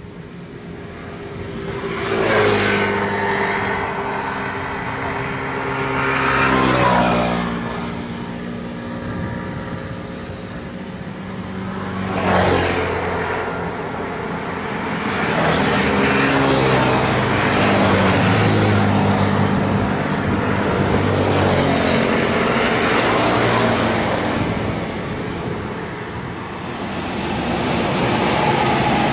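Kubota DC-93 rice combine harvester's diesel engine running, its engine speed rising and falling several times, loudest around 2, 7 and 12 seconds in and staying loud from about halfway on.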